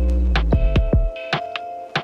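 Background music with a deep bass, held synth tones and a steady beat of sharp percussive hits.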